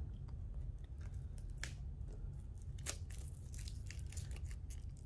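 Plastic wrapping being torn and peeled off a canvas: irregular crinkles and crackles, single sharper ones about a second and a half in and near three seconds, then a busier run of crackling toward the end.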